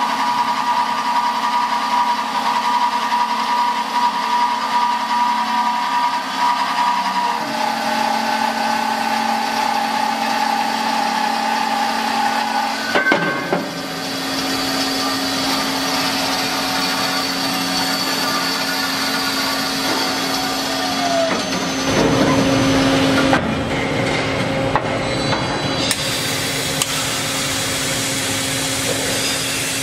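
CNC band saw cutting a steel H-beam under coolant spray: a steady mechanical whine whose pitch shifts several times during the cut. Near the end the sound changes as a CNC drill spindle bores a steel angle.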